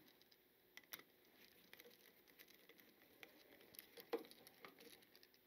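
Near silence, broken by a few faint clicks and ticks of a screwdriver and wire working at a duplex outlet's terminal screw, the clearest about four seconds in.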